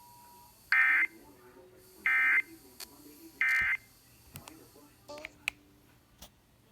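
EAS SAME end-of-message data bursts: three short, identical digital warbling bursts about a second and a half apart, marking the end of the alert.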